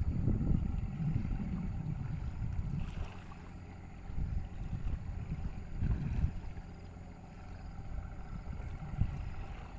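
Boat under way on a river: a low rumble that swells and eases unevenly, loudest near the start and again around the middle.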